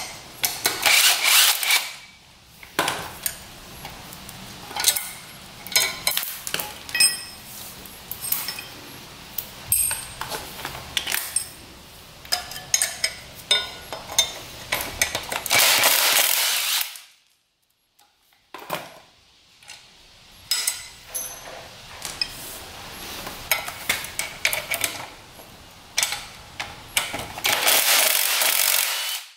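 Cordless impact driver hammering the rear sprocket bolts loose on a dirt bike's hub, in three runs of a second or two each: near the start, just past the middle and near the end. In between come metallic clinks of a wrench on the nuts and of loose bolts.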